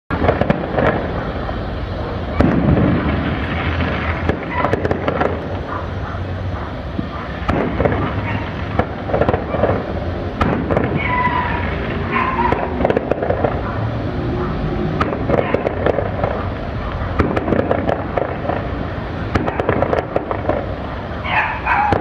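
Fireworks going off without pause: many sharp cracks and pops over a continuous crackle of bursts.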